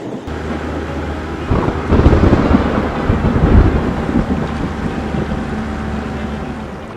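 Thunder rumbling over a steady hiss of rain, with a low engine hum underneath. The thunder rolls in about a second and a half in and is loudest a second or two later.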